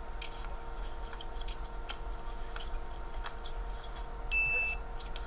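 Faint playback of a pickup basketball game: scattered light knocks from the ball and shoes on the court over a steady electrical hum. A short high-pitched beep sounds about four seconds in.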